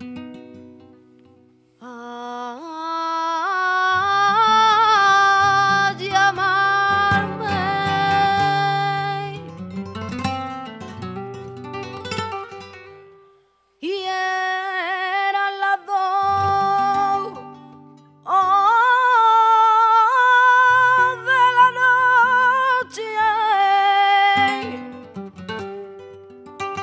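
A woman singing flamenco cante in long, wavering, ornamented phrases over a nylon-string flamenco guitar. The guitar plays alone at first, and the voice comes in about two seconds in. Both break off briefly near the middle, then the singing resumes.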